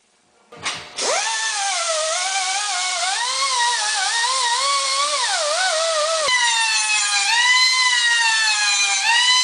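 A high-speed grinder spins up about a second in and runs with a whine that rises and falls in pitch as it bites into the edges of a cast exhaust manifold's flange, chamfering them for welding. Its pitch steadies about two-thirds of the way through.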